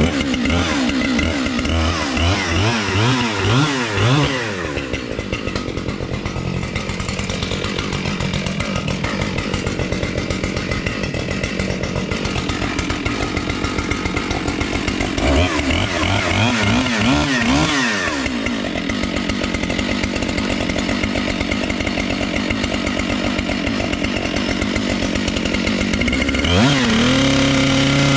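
Two-stroke chainsaw engine revved in a quick series of throttle blips, then running steadily. It is blipped again about halfway through and rises to a steady higher speed near the end.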